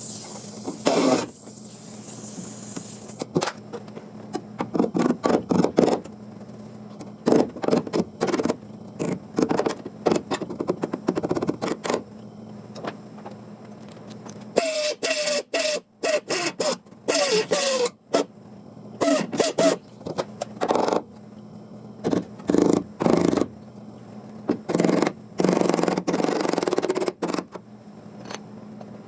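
Sheet-metal work in a home garage: a long run of short bursts of noise, on and off, some with a wavering pitch, over a steady low hum.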